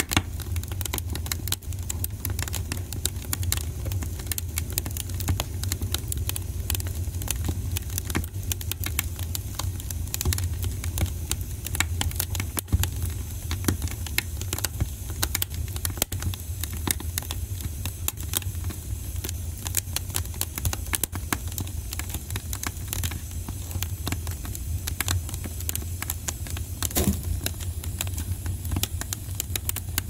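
Fire crackling: dense, irregular pops and snaps over a steady low rumble, with one sharper snap near the end.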